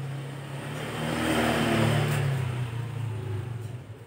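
A motor vehicle's engine noise swelling to a peak about two seconds in and fading again, like a vehicle passing, over a low steady hum.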